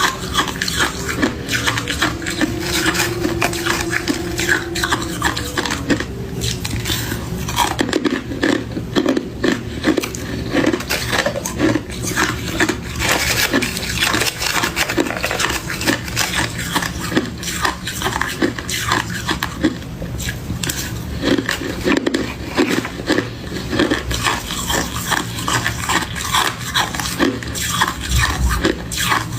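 Crunchy freezer frost and ice worked and crunched, a dense, continuous run of crisp crackles.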